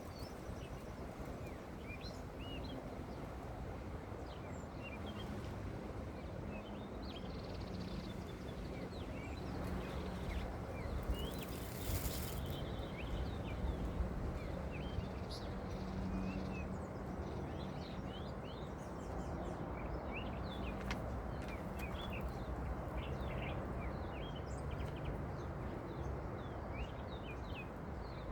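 Steady outdoor background noise with many short bird chirps scattered throughout. A brief rustling noise about twelve seconds in.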